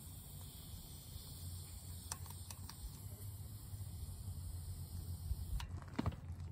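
Air hissing out of a fat bike's front tyre valve as the tyre is let down: a steady high hiss that cuts off abruptly near the end, followed by a few sharp clicks.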